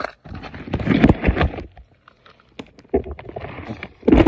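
Water splashing and sloshing in an ice-fishing hole as a hooked northern pike thrashes and is hauled up through it, in two loud spells with a few knocks.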